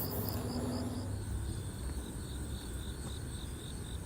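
Crickets chirping in a steady, high-pitched pulsed rhythm of about four to five chirps a second, with the pitch dropping slightly about a second in as a second chirper takes over. A low, steady rumble lies underneath.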